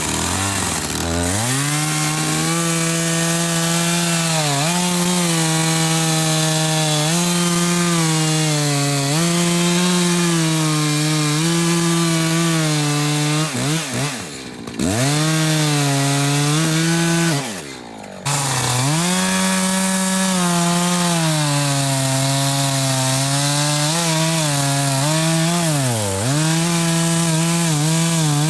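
Two-stroke chainsaw running at high revs while cutting wood, its engine pitch sagging under load and recovering again and again. Twice near the middle the sound briefly drops away.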